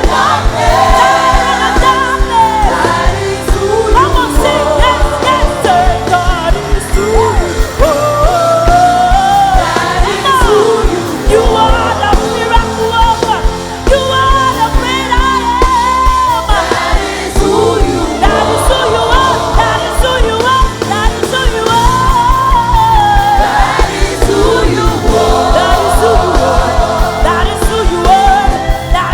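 Live gospel worship music: a lead vocalist sings melismatic runs over a band with a steady beat, with choir backing.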